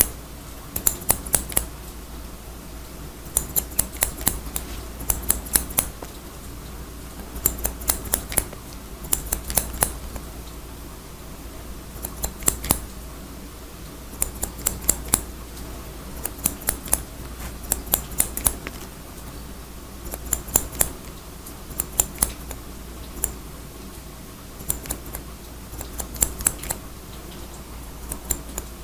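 Hair-cutting scissors snipping hair in quick runs of three to six crisp snips, one run every second or two, over a steady background hiss.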